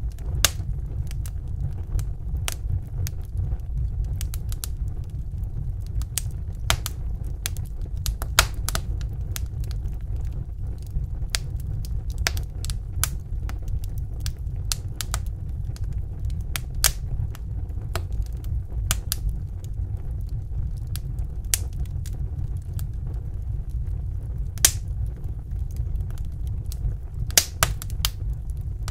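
Fire crackling in a fireplace: irregular sharp pops and snaps, a few of them louder, over a steady low rumble.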